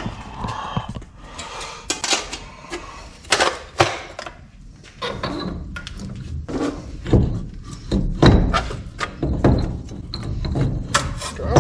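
Irregular metallic clunks and knocks as the new front wheel hub assembly is handled and worked into place on the steering knuckle.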